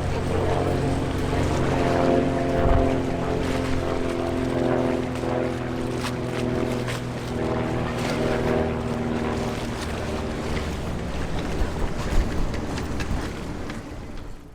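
Low engine hum with several steady tones that wavers slightly and thins out after about ten seconds, over wind noise on the microphone.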